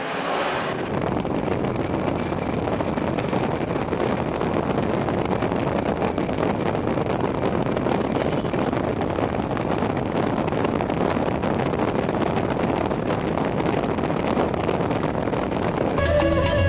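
Steady road and wind noise heard from inside a moving car on an unpaved road, with wind rushing over the microphone. Music comes in near the end.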